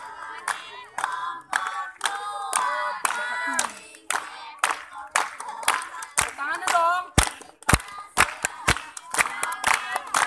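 A group of young people singing together while clapping hands to a steady beat, about two claps a second. The claps grow louder and quicker after about seven seconds.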